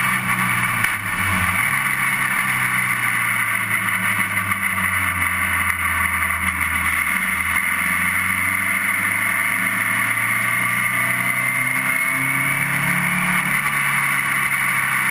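Onboard sound of a Formula Sheane single-seater's Rover 1800cc engine running at racing speed: a steady, loud engine note with a brief dip about a second in and small shifts in pitch through the lap.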